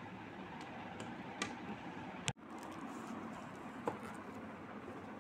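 Steady room noise with a few light clicks. The sound cuts out for an instant about two seconds in.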